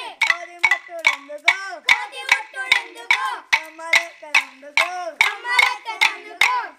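Boys singing a Jajiri folk song in chorus while clacking pairs of wooden sticks together in a steady beat, about three sharp clacks a second.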